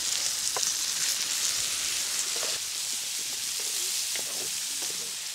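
Cubed potatoes, onions and broccoli rabe sizzling steadily in a hot iron pan over wood embers, with water just splashed in to help the cooking.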